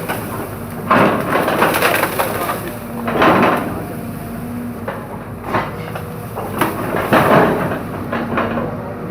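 Bamboo stalks cracking and splintering in a series of sudden bursts as an excavator crushes and tears at the clump, over the steady hum of the excavator's engine.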